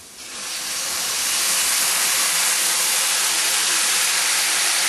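Red curry sauce poured into a stir-fry pan on medium-high heat, hissing and sizzling as it hits the hot metal and boils off in steam. The hiss builds over the first second or so, then holds steady and loud.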